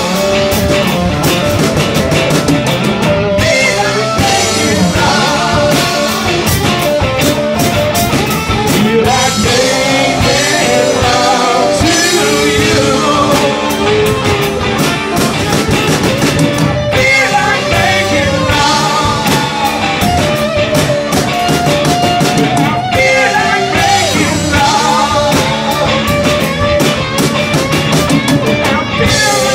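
Live rock band playing loud, with electric guitars and a drum kit, and a singer's voice over them.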